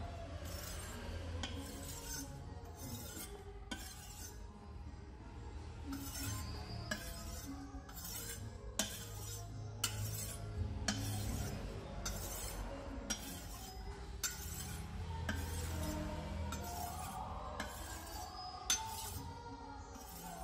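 Repeated brief strokes of a large steel knife blade being sharpened, about one to two a second, over background music.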